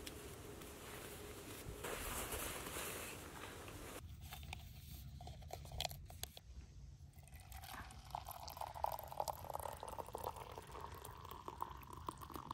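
A paper instant-coffee stick crinkling as it is emptied into a stainless steel camp mug, with light clicks of the granules. Then hot water is poured from a kettle into the mug, the pitch of the pour rising as the mug fills.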